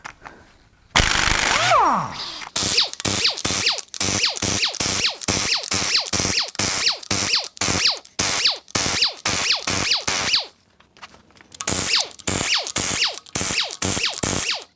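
Pneumatic impact wrench loosening the cylinder-head bolts of a 5.9L Cummins diesel. A short free-spinning burst winds down with a falling whine, then comes a long run of rapid hammering. It pauses about ten seconds in and hammers again toward the end.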